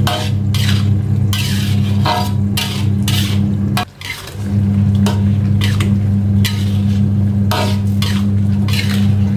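A metal spatula stirring chicken pieces in a wok of simmering sauce, scraping the pan about twice a second. A steady low hum runs underneath and cuts out briefly about four seconds in.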